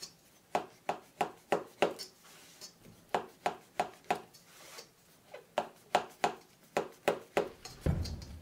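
Kitchen knife cutting down through stacked yufka pastry sheets in a metal baking tray: a run of short, crisp strokes, about two or three a second with a couple of brief pauses, and a heavier, duller stroke near the end.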